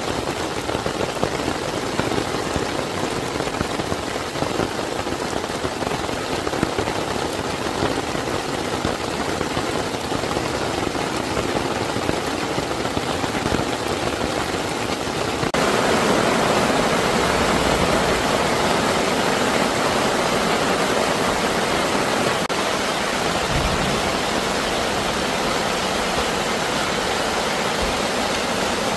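Steady rush of water in a rocky valley stream, loud and even, with a sudden change in its sound about halfway through.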